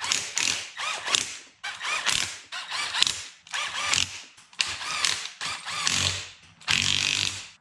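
Cordless power driver with a socket extension undoing the rear cover bolts of a Nissan R200 differential. It runs in a string of short whirring bursts, one bolt after another, with the motor spinning up and down in each.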